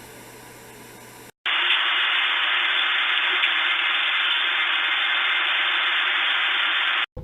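Old analog TV static hiss. A quieter hiss with faint steady tones stops about a second and a half in, and after a short gap a much louder, steady hiss starts and runs until it cuts off just before the end.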